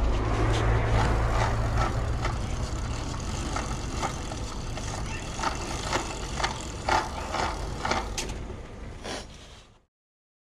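Sharp clicks and knocks, roughly two a second, from a broken bicycle's crank and pedal being turned and handled by hand; the rider thinks the chain has come off after a loud snap. A low rumble underneath is strongest at first and thins out, and everything cuts off near the end.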